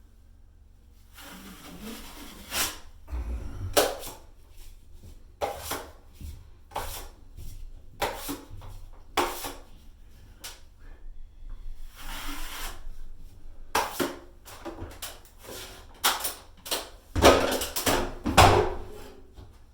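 Drywall knife scraping and spreading joint compound, in a string of separate scrapes of about a second each, broken by sharp clacks and knocks of the metal blade.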